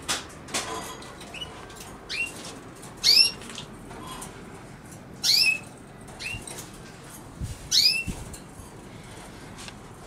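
A bird calling outdoors: about half a dozen short, sharp rising chirps at irregular intervals, the loudest about three and five seconds in, over a steady background hiss.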